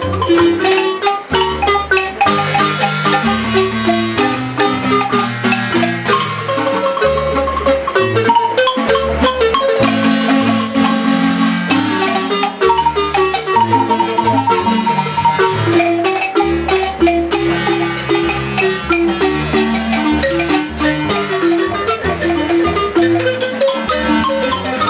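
Live marimba band: several players striking a large wooden marimba with mallets in a quick run of melody and chords, over plucked upright double-bass notes.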